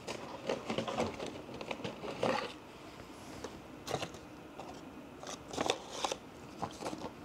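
Irregular light rustling and clicking of hands handling seed-sowing materials, such as plastic pots, trays and seed packets.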